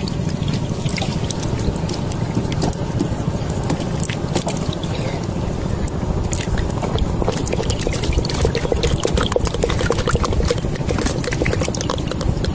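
Water splashing and trickling over a steady low rumble, with scattered small clicks and splashes.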